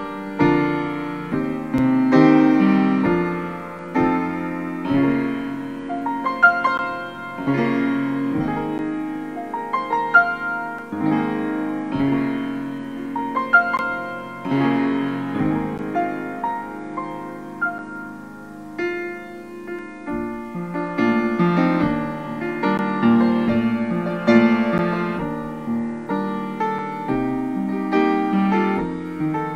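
Solo grand piano played, a melody over lower chords with the notes ringing on.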